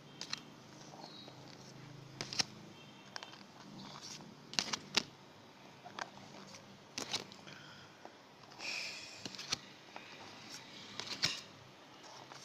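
Yu-Gi-Oh trading cards being flipped through one by one in the hand: irregular sharp card clicks and flicks, with a short rustle of cards about nine seconds in.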